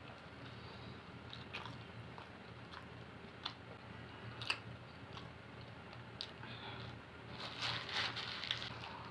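Mouth sounds of a person chewing a falafel wrap sandwich: wet chewing with scattered crunchy clicks, one sharp click about four and a half seconds in. Near the end the paper wrapper rustles for about a second.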